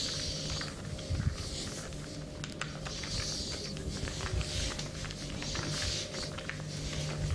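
Hands massaging with slow, repeated rubbing strokes, a soft swish about every second and a half, with many light ticks and taps of skin contact; a faint steady hum underneath.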